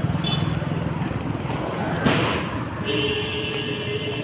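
Street traffic noise with a steady low engine hum. About two seconds in, a sudden loud burst of noise sounds and fades within a fraction of a second.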